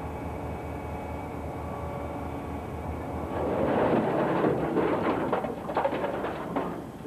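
Truck engine running steadily, then from about three seconds in a loud rumbling clatter of rocks sliding out of the tipped dump bed and tumbling onto a rock pile, breaking up into separate knocks near the end.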